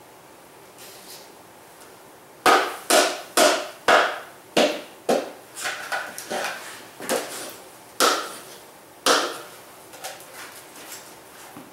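Wooden bee package being knocked and shaken as the bees are shaken out into the hive: a run of about a dozen sharp wooden knocks, roughly two a second, starting a couple of seconds in and dying away about three seconds before the end.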